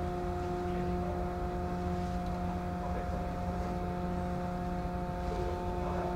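Steady drone of a ferry's engines and onboard machinery heard inside a passenger cabin: a constant low rumble with a few unchanging hum tones over it.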